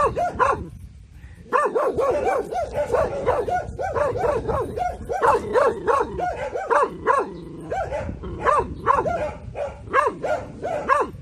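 Young Taiwan dog (Formosan mountain dog), about six months old, barking at a stranger as a guard-dog warning: quick barks at about three a second, with a short pause about a second in, then barking on almost without a break.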